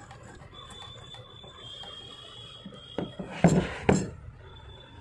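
Several heavy metal clunks and knocks from the cast-iron head of a Godrej hand sewing machine being tipped back on its base and handled, bunched about three and a half to four seconds in. They come after a faint, thin, steady high tone.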